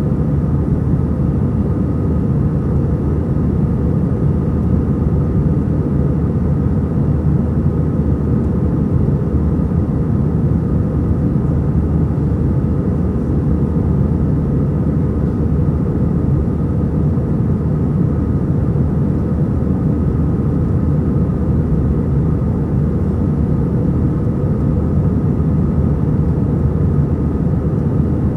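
Airbus A320 cabin noise in the climb after takeoff: the steady low rumble of the jet engines and the air rushing past the fuselage, with a faint steady whine above it.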